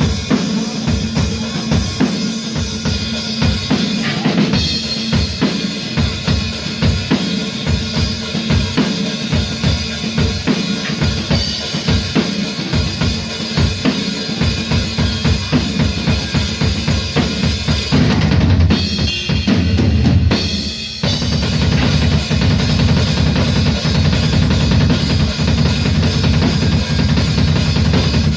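Rock or metal band playing live, with the drum kit loudest: steady bass drum and snare hits. There is a short break about eighteen seconds in, then the band comes back in fuller and denser.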